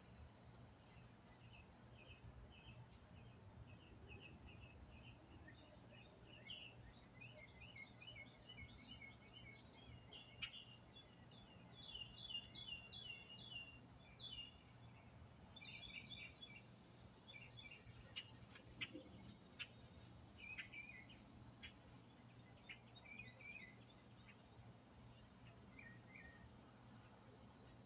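Faint ambience of small birds chirping in quick runs of short notes, over a steady high insect trill, with a few sharp clicks.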